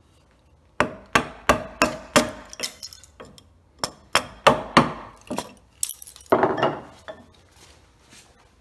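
Wooden mallet striking the handle of a bench chisel to chop waste out of a notch in black walnut: a quick run of sharp knocks, roughly three a second for about five seconds, ending in a longer clatter near the end.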